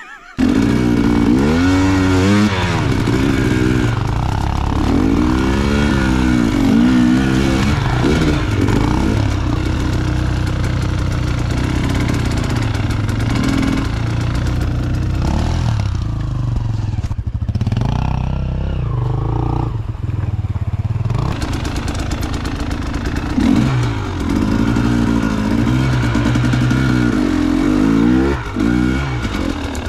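Enduro motorcycle engine running close by, revved up and down again and again as the throttle is blipped while riding off-road.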